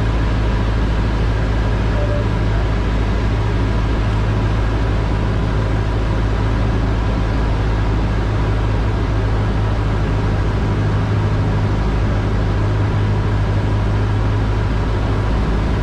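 Cessna 152's four-cylinder piston engine and propeller droning steadily and evenly in flight.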